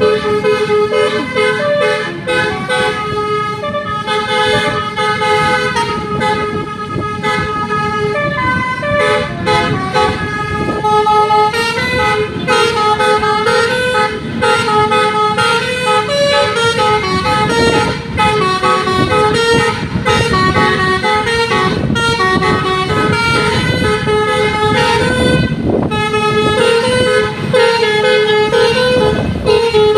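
Telolet horn, a multi-tone musical vehicle air horn, playing a melody of stepped notes without a break, over the rumble of a vehicle on the road.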